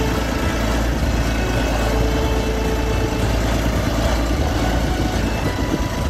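Vintage International Harvester crawler tractor's engine running steadily.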